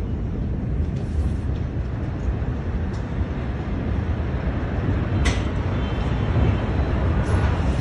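Steady low rumbling noise on a phone's microphone, with a few faint clicks about one, three and five seconds in.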